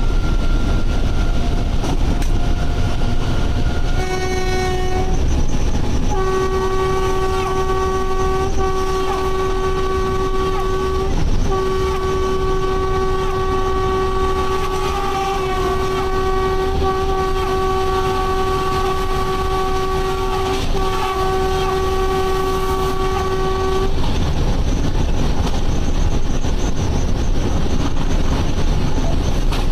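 WAP-5 electric locomotive's horn heard from inside the cab. It gives a short blast about four seconds in, then a long series of blasts with only brief breaks for about eighteen seconds, over the steady rumble of the train running at speed.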